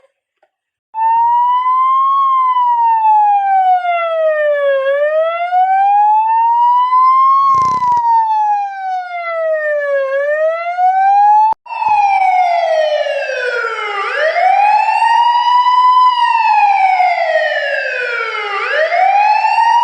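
Emergency vehicle siren wailing, its pitch rising and falling in slow sweeps of a few seconds each. Partway through it cuts off and a louder siren wail takes over, each sweep dropping quickly and then climbing back up.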